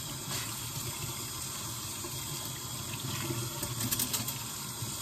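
Kitchen sink tap running steadily while dishes are washed by hand, with a few light clinks of dishware about four seconds in.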